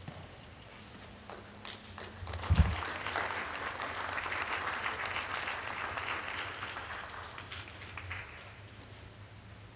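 Spectators applauding. The clapping starts about two seconds in, swells, then fades out near the end. A single low thump comes as it begins.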